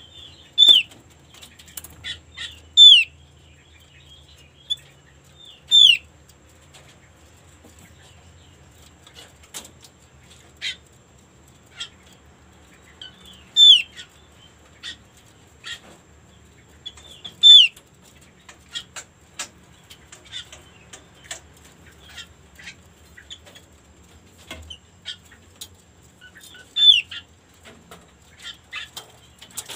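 Female opior (opyor) calling: loud, sharp notes that slide downward, given singly at irregular intervals a few seconds apart, with many short, faint chips in between.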